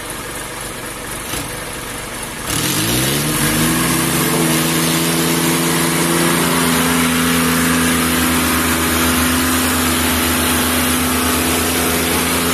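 Tractor diesel engine revved up suddenly about two and a half seconds in. Its pitch climbs for about a second, then it holds steady at high revs.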